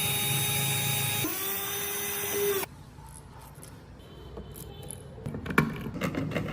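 A small electric power tool whining at a steady pitch, shifting to a slightly different speed about a second in, then cutting off suddenly after under three seconds. Quieter clicks and scraping of handling follow near the end.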